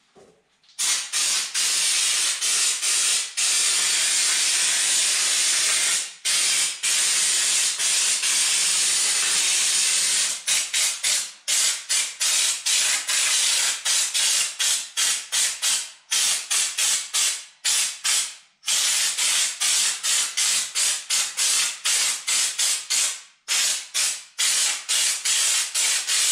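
Raptor bed-liner coating being sprayed through an air-fed schutz-type gun: a loud hiss of compressed air and spray. It starts just under a second in and runs as one long pass of about ten seconds, then breaks into many short bursts as the trigger is pulled and released.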